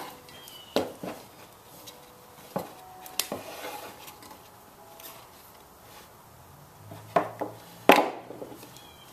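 Scattered clacks and knocks from a spring clamp and a metal bandsaw wheel being handled on a wooden bench while a urethane bandsaw tire is stretched onto the rim; the loudest knock comes about eight seconds in.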